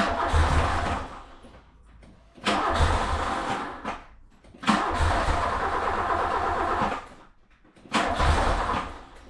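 A VW Polo GT breadvan's four-cylinder petrol engine being cranked on the starter in four separate bursts of one to two seconds each. These are attempts to start it after it ran out of fuel.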